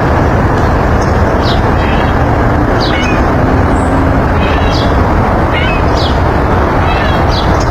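Bird chirping: short, high chirps that fall steeply in pitch, repeated roughly every half second, over a loud steady rushing rumble.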